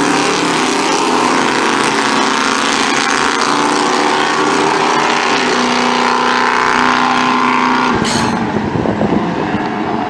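Drag racing car's engine at full throttle, running hard down the drag strip after the launch. A sharp click comes about eight seconds in, after which the engine tone gives way to a rougher noise.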